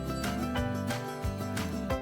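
Background music: a strummed guitar tune over a steady beat.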